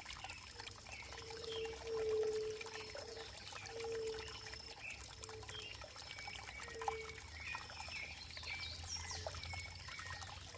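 Running water trickling and gurgling, with short hollow bubbling notes recurring every second or so over a steady wash and scattered drips.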